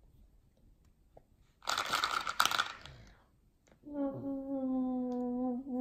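A brief burst of noise about two seconds in, then a young girl's voice holding one long, steady drawn-out note for over two seconds, dropping in pitch at the very end.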